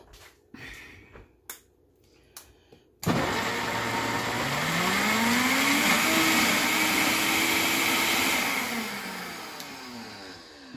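Vitamix blender starting up about three seconds in after a few light clicks, its motor pitch climbing as the speed dial is turned up, running steadily while puréeing roasted butternut squash and red pepper with water into a thick sauce. Near the end the pitch falls and the motor sound fades as the speed is brought down.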